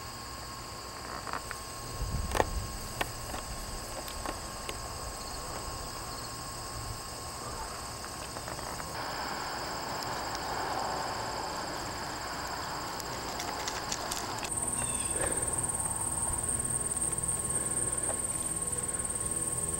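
Insects singing in a steady, high-pitched chorus, with a few short knocks about two seconds in.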